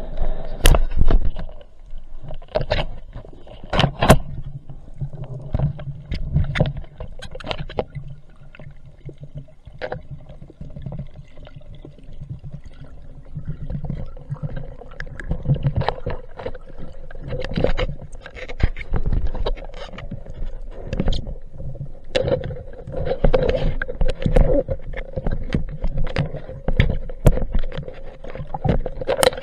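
Underwater sound picked up by a diver's camera while swimming: water rushing and gurgling around the camera, with many scattered sharp clicks and knocks and a faint steady hum underneath.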